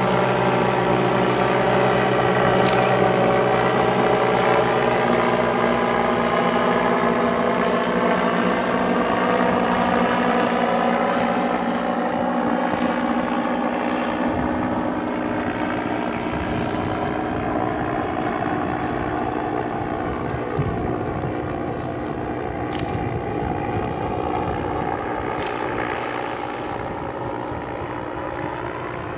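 An airship's propeller engines droning as it climbs away after takeoff. The stack of engine tones slides slowly lower in pitch and fades as it recedes.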